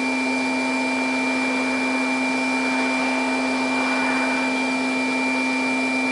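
Steady mechanical hum of a running motor, holding several constant tones over an even hiss, unchanging in level.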